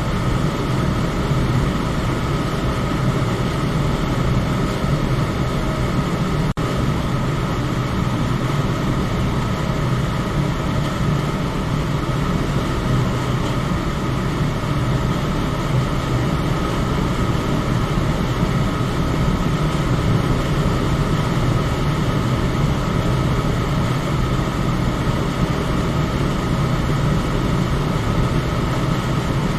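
Electric fan running steadily, an even whooshing hum with a low motor drone, used as white noise for sleep. A momentary dropout about six and a half seconds in.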